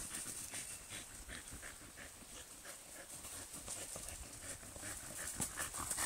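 A dog panting during play, with short faint crunches of footsteps in dry fallen leaves a few times a second.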